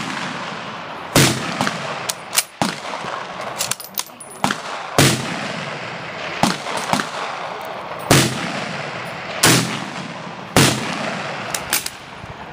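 About a dozen rifle shots at irregular intervals of a second or two, sharp cracks of differing loudness, each trailing off in a short echo. Among them is the 1943 Mosin-Nagant 91/30, a 7.62×54R bolt-action rifle. Some shots come too close together for one bolt-action rifle, so other guns on the range are firing too.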